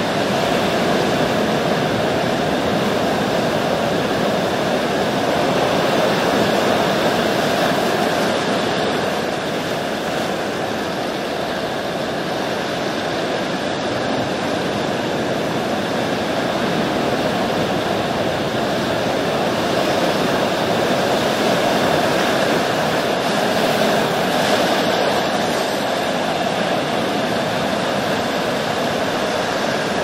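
Ocean surf: a steady rushing wash of waves that swells and eases slightly every few seconds.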